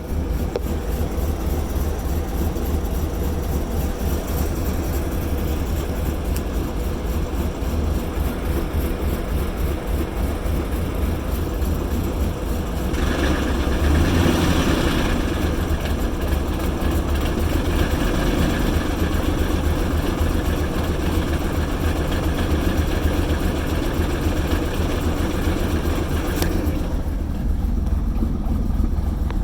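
Engine idling roughly, with a steady low rumble. From a little before halfway a louder, noisier sound joins in, strongest soon after it starts, and it drops away again a few seconds before the end.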